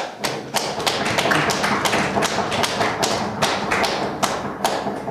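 Sharp tapping, a quick series of strikes that grows dense and irregular, then dies away near the end.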